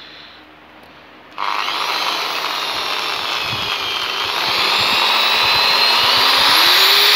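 INGCO 650 W electric impact drill switched on about a second and a half in and running with a steady motor whine, which rises in speed and loudness in the second half.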